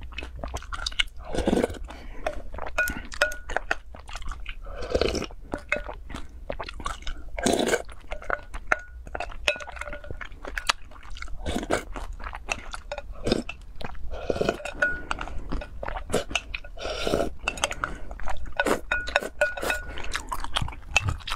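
Close-miked chewing and crunching of food, a steady run of short crackles with a louder bite every few seconds.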